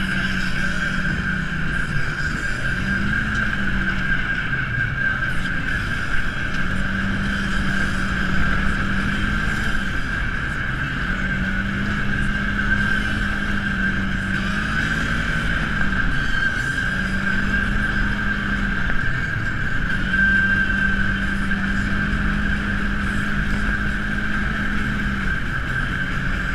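Side-by-side UTV engine running hard on the move, its note rising and falling again and again as the throttle is worked, with a steady high whine and a low rumble underneath, heard from on board.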